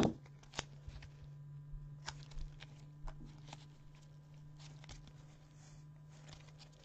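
Gloved hands handling trading cards and a clear plastic card box: a sharp tap at the start, another about half a second in, then scattered soft clicks and rustles, over a steady low electrical hum.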